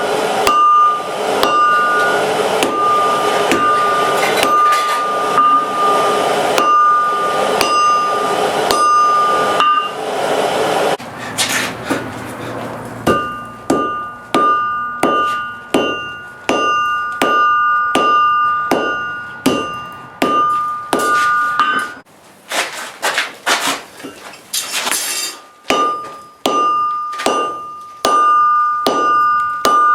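Blacksmith's hammer striking hot steel on an anvil in steady blows, one to two a second, with the anvil ringing on between blows. A steady rushing noise runs under the first third, and the hammering pauses briefly twice.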